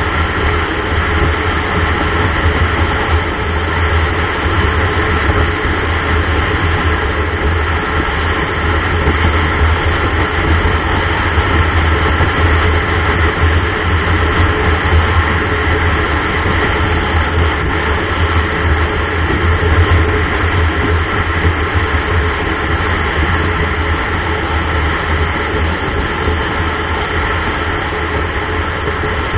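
Motorcycle engine running steadily at cruising speed, a constant low drone mixed with wind and road noise.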